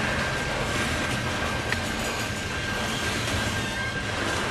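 Freight train of covered hopper cars rolling steadily past close by, the wheels and cars making a continuous rumble. A thin, steady high-pitched tone runs over it throughout.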